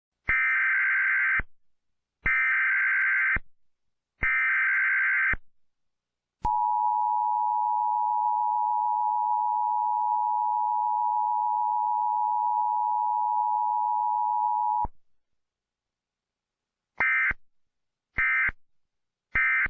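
Emergency Alert System tones, the signal of a broadcast weather warning. Three buzzing digital header bursts about a second long come first, then a steady two-tone attention signal for about eight seconds, then three short end-of-message bursts.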